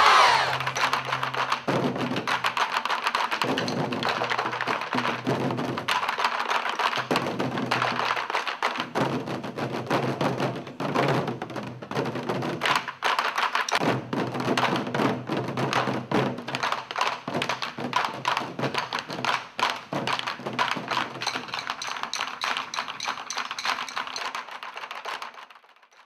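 A Korean pungmul percussion band playing fast, dense drumming, with a buk barrel drum struck by hand-held stick. The playing fades out near the end.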